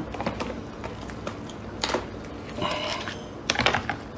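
Irregular small clicks and cracks, a few at a time, as a shellfish's shell is handled and pulled apart at the table.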